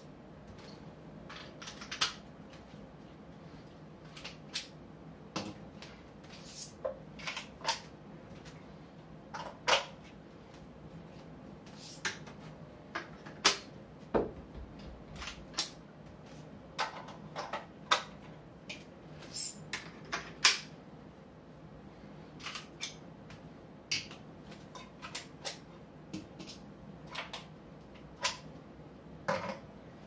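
Irregular sharp clicks and clacks of a YC Onion Nut Q1 quick-release camera mount and plates being worked as a camera and tripod head are detached and handled, with a few louder knocks as pieces are set down on a tile floor.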